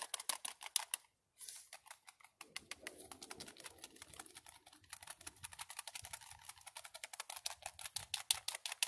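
Wire whisk beating beer batter in a bowl, the tines clicking rapidly against the bowl's sides, several strokes a second, with a brief pause about a second in.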